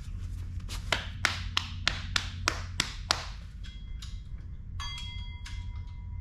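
A quick run of sharp taps, about three a second, then a steady ringing tone that comes in near the end.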